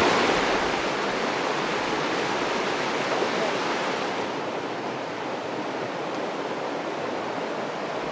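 River water rushing over rocks in a shallow, fast current: a steady wash that grows slowly a little quieter over the first few seconds.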